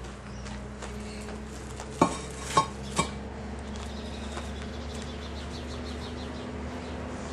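Three sharp clacks of concrete pavers knocking down onto a stack, about half a second apart, over a faint steady hum.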